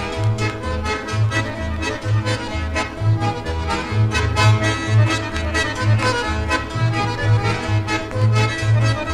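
A Ukrainian dance band's polka recording, the accordion carrying the tune over a steady alternating oom-pah bass.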